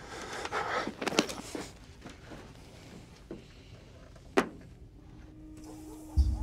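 Clothing rustling, with a leather jacket creaking, as two men hug, and a few soft knocks in the first two seconds. One sharp click comes a little past four seconds, and low music swells in at the very end.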